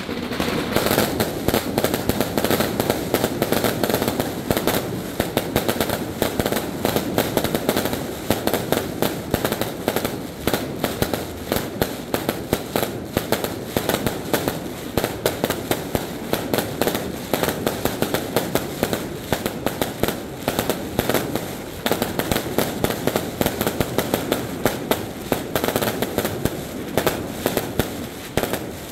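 Professional fireworks display at close range: a dense, unbroken barrage of rapid bangs and crackle as aerial shells are launched and burst overhead.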